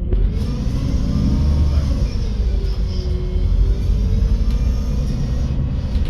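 MAN Lion's City 12 EfficientHybrid CNG city bus drivetrain running under way, heard from inside the bus: a steady low rumble with a whine that rises and falls in pitch as the bus speeds up and eases off.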